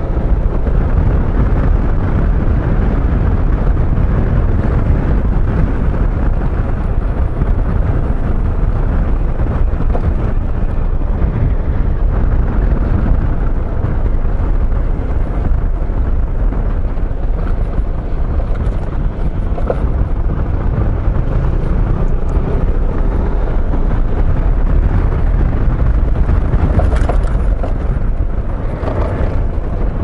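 Wind rumbling on the microphone of a scooter in motion, over the engine and tyre noise, steady and loud. The ride is on a badly broken road.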